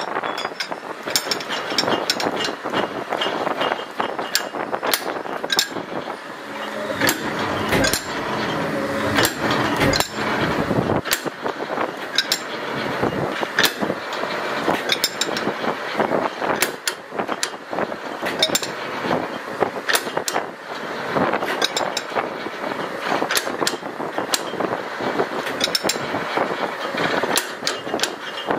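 Metal lathe running, its four-jaw chuck spinning a tractor top link against a hand-held tool pressed into the ball-end eye, with irregular metallic clatter and knocks throughout. A deeper machine hum with a steady tone comes in for a few seconds near the middle.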